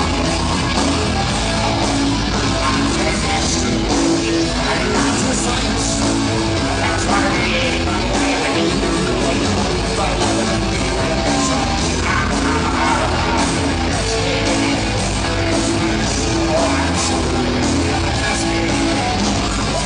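Live Southern rock band playing loud: electric guitars, bass and drums, with a lead singer on the microphone.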